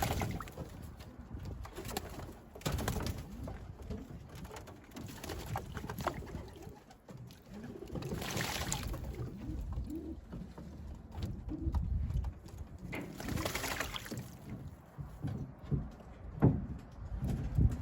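Racing pigeons cooing, with two short bursts of splashing from birds bathing in a water bath, about halfway through and again a few seconds later.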